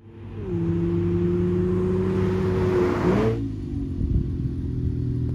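Infiniti Q50 sedan's engine running at a steady pitch as the car approaches, with a rising hiss of road and wind noise. About three seconds in, the note sweeps up briefly and the hiss cuts off, leaving a lower, steady hum.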